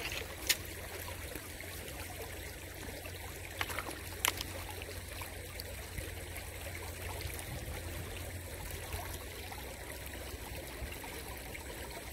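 Water trickling steadily in a shallow ditch, with a few sharp clicks about half a second in and again around four seconds in.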